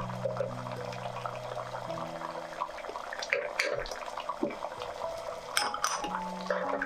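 Thick curry bubbling and popping at a boil in a pot while it is stirred with a wooden spatula, with a few sharper clicks about halfway through and again near the end. Soft background music with low held notes runs underneath.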